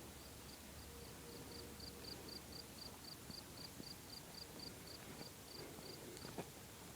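A cricket chirping in a steady series of short high chirps, about four a second, swelling in the middle and stopping near the end. A faint knock comes shortly before the chirping stops.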